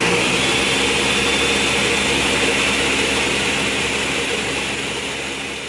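Countertop blender switched on and running steadily, blending a thick fruit smoothie. Its motor starts abruptly and eases off slightly near the end.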